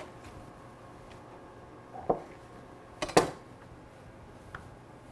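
A few sharp knocks of a kitchen knife against a wooden butcher-block board while puff pastry is cut into squares, the loudest pair about three seconds in.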